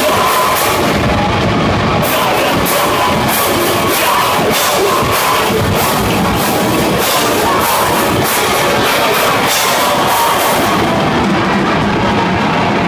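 A post-metal band playing live at full volume: dense distorted guitars over a drum kit with a steady run of cymbal crashes, which drop away near the end.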